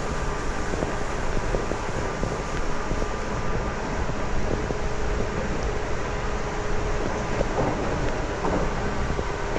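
JR Kyushu 811 series electric train running at speed, heard from inside the car: a steady rumble of wheels on rail with a faint steady whine from its outer-fan traction motors and a few light clicks.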